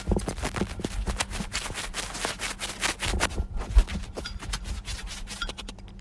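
Paintbrush scratching and rubbing on paper, close-miked: a dense, irregular run of small clicks and scrapes over a faint low hum, with one heavier thump a little past halfway.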